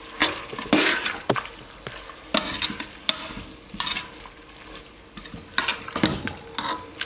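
Metal spatula scraping and knocking against the sides and base of an aluminium pressure cooker as onions and tomatoes are stirred, in irregular strokes every half second or so. Underneath, the onions and tomatoes fry with a light sizzle.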